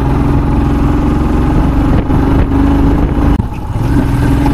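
Motorcycle engine running as the bike is ridden, heard from the rider's own machine; the engine note eases and changes about three and a half seconds in.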